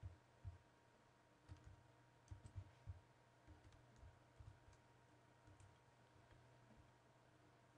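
Faint, irregular clicks and soft taps of typing on a computer keyboard, in small clusters, over a steady low hum.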